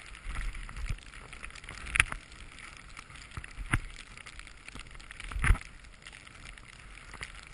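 A steady hiss of a rider sliding over snow, with three sharp knocks about two, three and a half and five and a half seconds in, the last the loudest.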